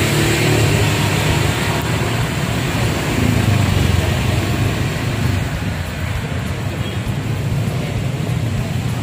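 Street traffic noise: motor vehicle engines running nearby as a steady low hum.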